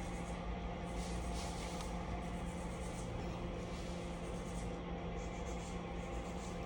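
A few faint scraping strokes, like a nail file worked over a fingernail, over a steady low hum.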